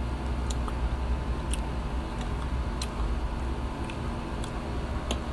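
Soft, scattered mouth clicks and smacks of someone chewing food, about seven over five seconds, over a steady low hum.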